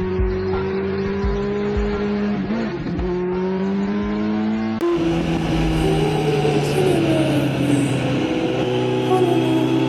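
Motorcycle engine running at fairly steady revs while riding, its pitch drifting slowly. The sound changes abruptly about halfway through.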